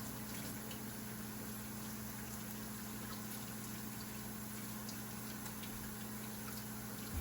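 Food frying in a pan: a steady sizzle with scattered faint pops, over a low steady electrical hum.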